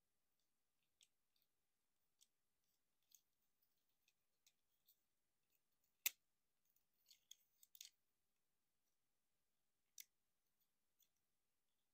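Plastic parts of a Transformers Optimus Prime figure clicking and snapping as it is transformed by hand. The clicks are faint and scattered, with a sharper snap about six seconds in, a quick run of clicks just after, and another snap near the end.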